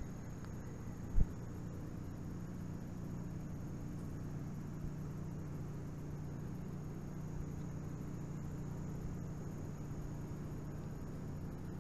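Steady low machinery hum, with one sharp thump about a second in.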